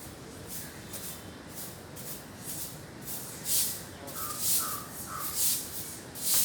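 Paddles splashing in the water in a steady rhythm, about one stroke a second, getting louder from about halfway through. Crows caw three times near the middle.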